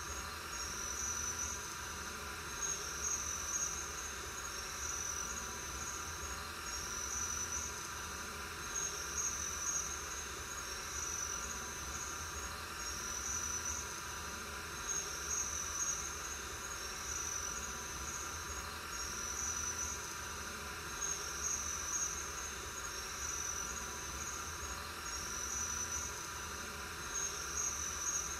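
Night-time insect ambience: crickets chirping in short, high bursts that repeat about once a second, over a steady background hiss and low hum.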